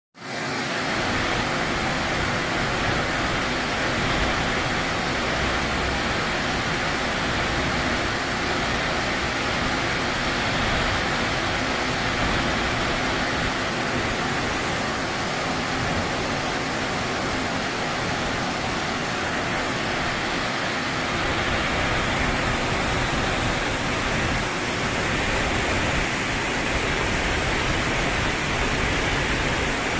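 Waterfall rushing steadily, a loud, even wash of water noise.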